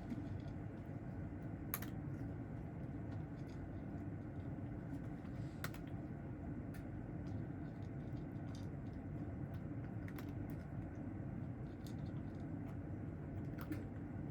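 A steady low hum of room noise with scattered light clicks and ticks at irregular intervals.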